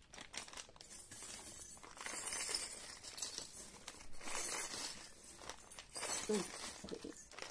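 Small Tibetan-silver metal charms clinking and rattling against each other as they are scooped up and dropped into a clear plastic bag, with the plastic crinkling; the jingling comes in several bursts.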